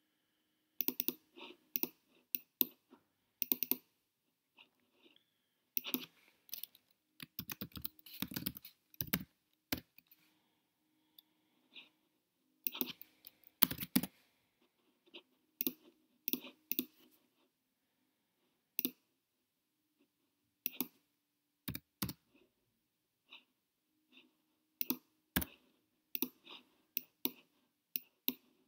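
Computer mouse clicks and keyboard keystrokes, sharp and irregular, coming singly and in quick runs, over a faint steady hum.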